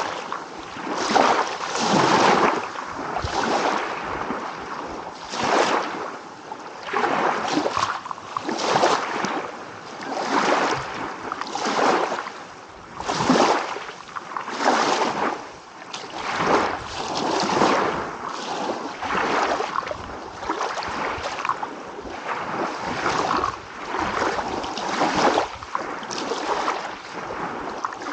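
Small ocean waves breaking and washing on a shore, the surf swelling and fading every second or two.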